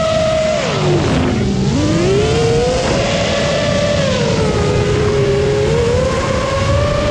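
FPV quadcopter's motors and propellers whining, the pitch dropping steeply about a second in as the throttle comes off, then climbing back and wavering with the throttle, over a rough rush of prop and air noise.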